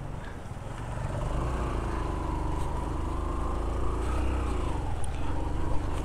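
Motorcycle engine running under load, its pitch wavering up and down a little, over a steady low rumble.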